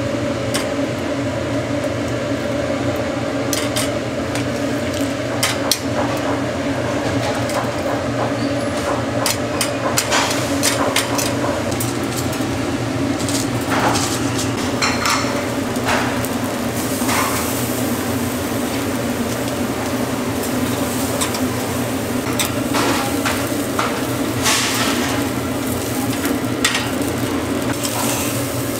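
Metal tongs clicking and clinking on a wire grill grate over charcoal as eel fillets are laid on and turned, with the fillets sizzling more in the second half. A steady machine hum runs underneath.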